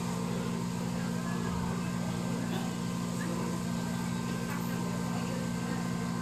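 A steady low mechanical drone, unchanging throughout, over a constant background of noise.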